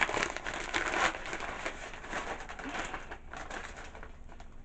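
Plastic packaging crinkling and rustling in the hands as small tripod accessories are unwrapped. The crinkling is busiest in the first second and thins out toward the end.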